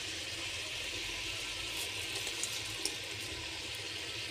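Mutton masala sizzling steadily in oil in an aluminium pressure cooker on a low gas flame, with a few faint pops.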